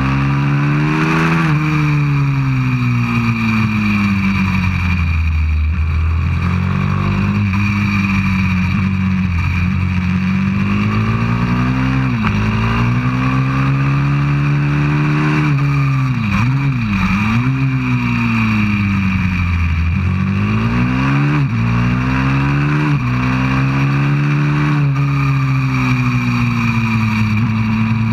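190cc pit bike engine at racing revs, heard close up from a camera mounted on the bike. The engine note climbs on the straights and falls back for the corners several times, with a couple of quick dips and rises in pitch about halfway through as it is shifted down.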